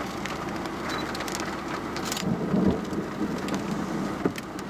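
Big raindrops tapping on a car's windscreen, heard from inside the car as scattered sharp ticks over a steady rushing noise, with a louder low rumble about two seconds in.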